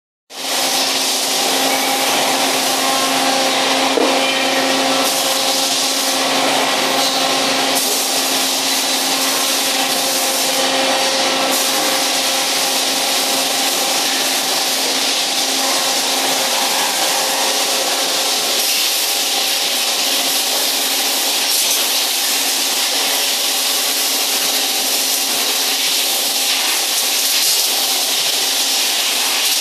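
Steady din of a row of CNC machining centres running: a hum with a few steady tones under a constant hiss.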